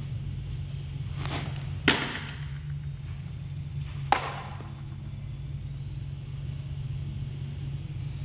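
Two sharp cracks of a baseball being struck, about two seconds apart, the first one preceded by a short rushing sound. A steady low hum runs underneath.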